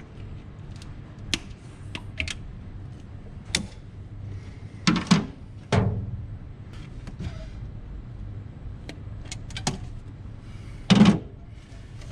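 Hand tools clicking and knocking against parts in a car's engine bay, with a few louder clunks about five seconds in and near the end, over a low steady hum.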